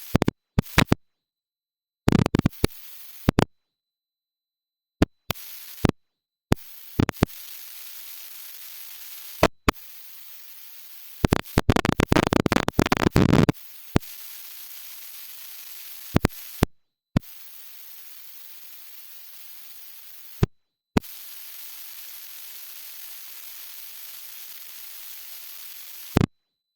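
Sharp clicks and knocks at irregular intervals over a steady hiss, with a dense clattering run about eleven to thirteen seconds in. No engine is running.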